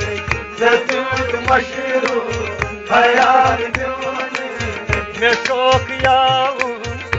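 Background song: a wavering singing voice over a regular, quick drum beat.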